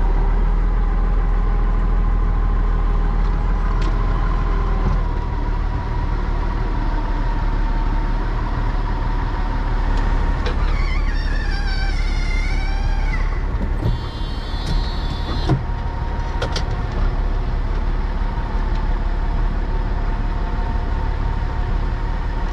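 Tractor engine running steadily, heard from inside the cab, with a steady whine over its low drone.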